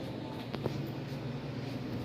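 Steady low mechanical hum, with two faint clicks just over half a second in.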